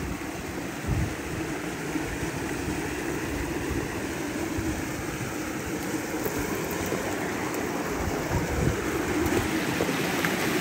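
Rocky mountain stream rushing and foaming over granite boulders in shallow rapids, a steady rush of water that grows a little louder near the end.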